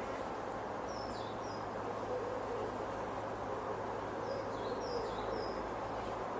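Woodland ambience dominated by the steady drone of distant agricultural machinery and a light breeze through the trees. A small bird gives a few short, high calls about a second in and again around four to five seconds in.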